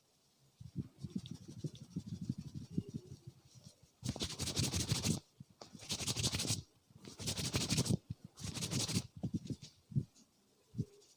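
A barber's hands working over a head and hair during a head massage. First comes a run of soft quick taps, then four loud scratchy rubbing strokes of about a second each through the hair, then a few soft thumps.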